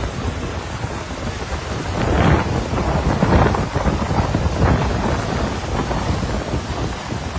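Rumbling rush of wind buffeting a phone microphone held out of a moving car's window, mixed with the hiss and splash of floodwater thrown up by the tyres. It swells several times.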